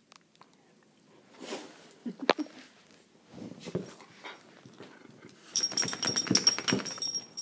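A dog moving about close by, with a sharp click a little over two seconds in, then a rapid metallic jingle of its collar ring and tag for nearly two seconds near the end as it moves its head quickly.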